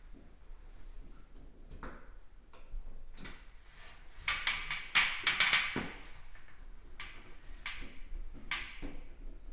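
Hands-on installation work on a fixed-temperature spot-type heat detector: light clicks and rustling, a cluster of loud, sharp scraping clicks in the middle, and a few single sharp clicks near the end.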